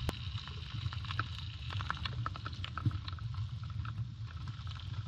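Campfire with sausages cooking on it: scattered crackles and pops over a steady low rumble.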